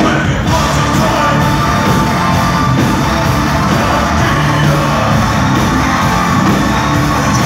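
Industrial metal band playing live, loud: distorted electric guitars, drums and keyboards, with a man singing into a microphone over them, heard from within the audience.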